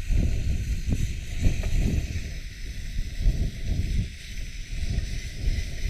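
Wind buffeting the microphone in irregular low gusts, over a steady faint high hiss.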